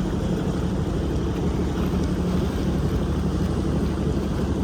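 Boat engine running steadily with a constant low hum, with wind rumbling on the microphone.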